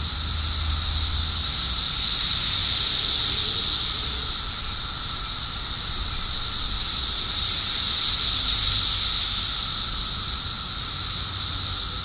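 Dense chorus of Brood X periodical cicadas: a loud, continuous high-pitched buzz that swells, easing off a little between a peak about three seconds in and another around eight to nine seconds.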